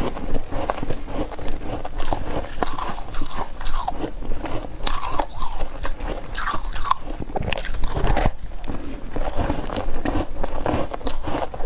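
Close-miked biting and chewing of freezer frost and ice: a dense, continuous run of crunches.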